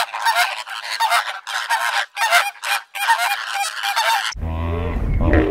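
A flock of flamingos honking: many short calls overlapping in quick succession. About four seconds in they stop abruptly and a deep, low-pitched sound takes over.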